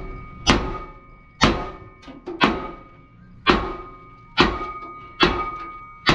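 Hammer blows on the steel rail of an Isuzu truck chassis being doubled, about one a second, seven in all, each strike leaving the beam ringing with a clear metallic tone.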